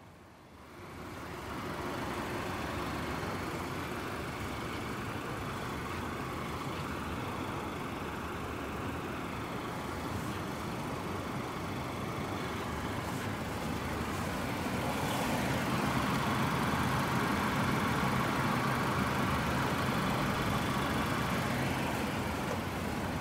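2017 Volkswagen Passat B8's 1.4-litre turbocharged inline-four idling steadily, heard close to the front grille. The sound comes in about a second in and grows a little louder about two-thirds of the way through.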